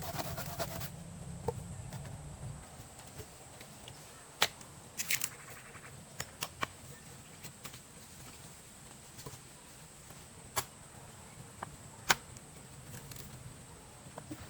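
Scattered sharp taps and clicks at irregular intervals over a faint steady hiss, with a quick cluster about five seconds in and the loudest tap about twelve seconds in.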